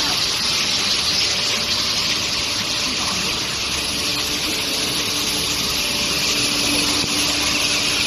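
Steady hiss and drone of a running long-bar induction hardening and tempering line, with a faint steady hum underneath that grows clearer about halfway through.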